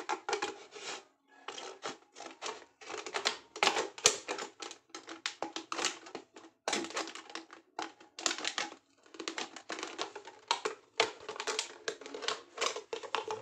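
Scissors cutting down the side of a plastic water bottle: clusters of crisp snips and plastic crackles in quick succession, with short pauses between runs of cuts.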